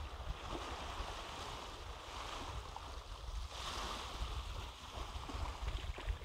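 Small lagoon waves washing onto a sandy beach, the rush of water swelling about halfway through, with a low wind rumble on the microphone.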